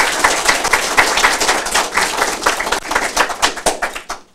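Audience applauding, many hands clapping together, thinning out and dying away near the end.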